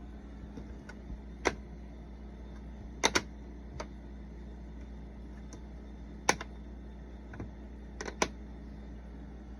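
Plastic magnetic letters from a Leapfrog Fridge Phonics set clicking as they are handled and set in place: a handful of short, sharp clicks, some single and some in quick pairs, over a steady low hum.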